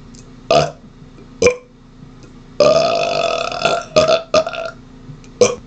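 A man burping on purpose: two short burps a second apart, then one long pitched burp of about a second, followed by a quick run of short burps.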